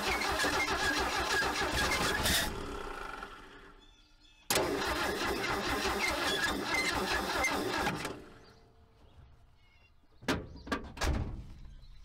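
1979 Ford F100's 300 cubic-inch inline six cranked on the starter twice, each try a few seconds long, firing and sputtering on starting fluid and then dying away. A few short knocks follow near the end.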